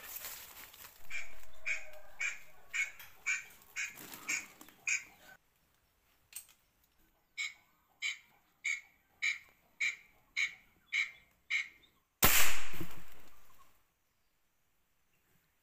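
A squirrel gives a steady series of short, sharp calls, about two a second, in two bouts. Near the end a single loud rifle shot cracks and rings away over a second or so.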